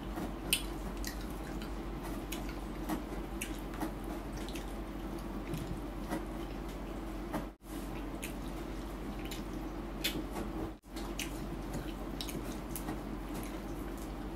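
Close-miked eating sounds: scattered small wet clicks and smacks from chewing and from fingers pulling apart roasted chicken, over a steady low hum. The sound drops out for an instant twice.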